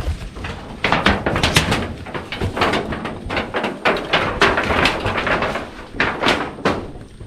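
Dense, irregular rustling and knocking with no steady tone.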